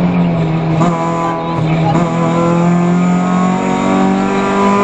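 Peugeot 206 F2000 rally car's engine heard from inside the cabin, pulling hard at high revs with its pitch rising slowly. Two short knocks sound about one and two seconds in.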